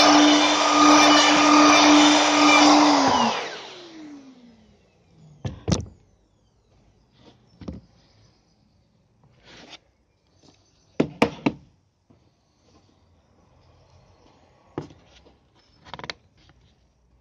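Plunge router running as it cuts a hinge cup hole through a plywood jig, then switched off about three seconds in, its motor winding down with a falling whine. After that come a handful of short knocks and clicks as the jig is handled and a metal concealed cabinet hinge is set into the recess.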